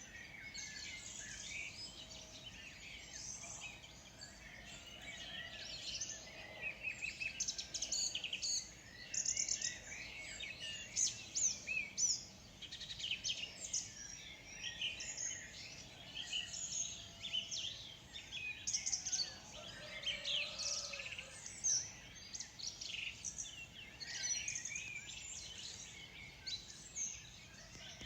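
A chorus of several songbirds chirping and trilling at once, many short overlapping high calls in quick succession, with a faint steady background hiss.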